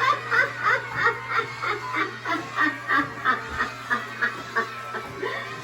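Spirit Halloween Harriet Hustle animatronic playing its recorded cackling laugh through its built-in speaker, a rapid run of short laughs about four a second, over a steady low hum.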